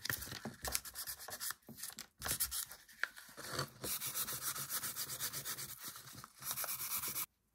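Flexible sanding pad rubbed by hand over a small stained wooden wash stand in quick back-and-forth strokes, stopping shortly before the end. This is a light sanding to take the stain colour down a little.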